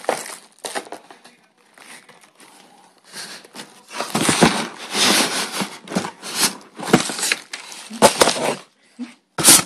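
Cardboard box and packaging being handled, rustling and crinkling in irregular bursts: sparse at first, busiest from about four seconds in until past eight, with a sharp burst near the end.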